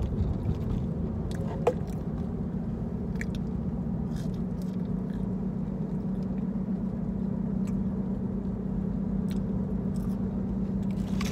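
Steady engine and road drone in the cabin of a moving car, with scattered small clicks of someone chewing food, one sharper click about two seconds in.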